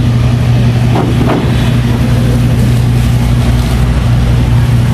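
Steady low hum of an idling vehicle engine, running evenly with street noise behind it.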